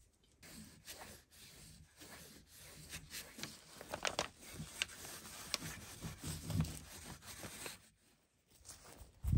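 A cloth rag rubbing and wiping oil over an iron axe head in quick strokes, with scratchy rustling and small sharp clicks. The rubbing stops about eight seconds in, and a low thump follows at the very end.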